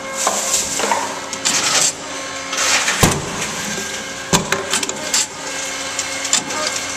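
Tomra T-53 reverse vending machine running with a steady motor hum while a plastic bottle is turned on its rollers to read the barcode. There is scraping and several knocks from the bottle in the chute, the loudest about three seconds in. The machine is having trouble reading the barcode.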